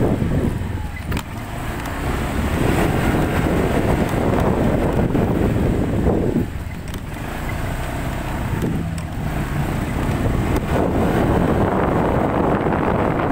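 A motorcycle on the move, its engine and road noise under heavy wind rumble on the microphone. The noise eases briefly about six seconds in, then picks up again.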